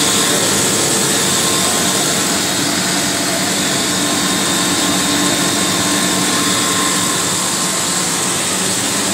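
Snack food extrusion line running: a loud, steady machine drone and hiss with a few held tones, unchanging throughout.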